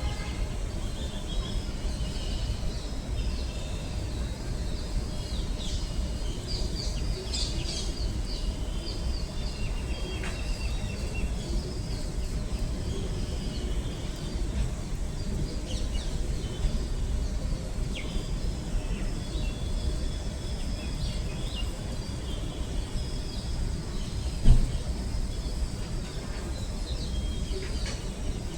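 Morning bird chorus: many small birds chirping and trilling over a steady low background rumble. One brief loud thump sounds about three-quarters of the way through.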